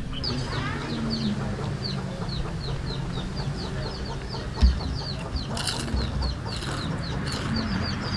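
Chicks peeping: a steady run of short, high, falling chirps, about three a second, over a low steady hum, with one soft thump about halfway through.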